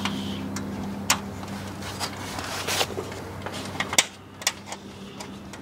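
Small metal hardware clicking and scraping against an aluminium tailgate trim panel as nuts and square carriage bolts are fitted and turned in its keyway, with a sharp click about four seconds in. A steady low hum runs underneath.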